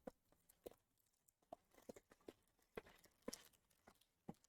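Near silence, with faint, scattered clicks and taps of trading cards being handled.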